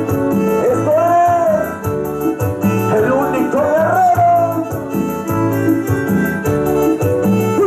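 Keyboard-led regional dance music with electronic organ and piano sounds and a bass line, played loud through a large PA sound system. A voice sings a gliding melody line in the middle.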